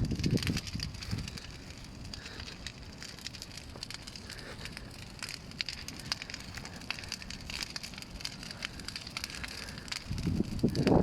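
Bonfire crackling, with frequent small sharp pops and snaps.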